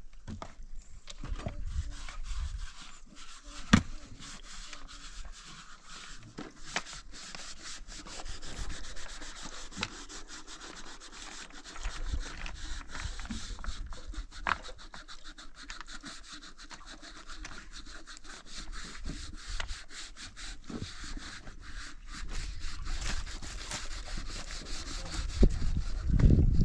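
Continuous rubbing and scraping, like hand-sanding, broken by many small clicks and one sharp knock about four seconds in, with a low rumble building near the end.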